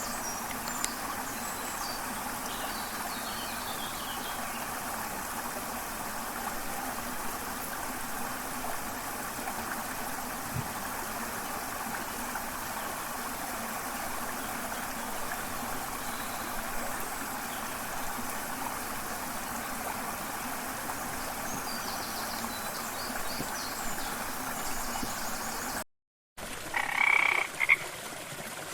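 A dense chorus of frogs croaking steadily. About 26 seconds in it cuts off for a moment and a different nature recording starts, with a loud bird call shortly after.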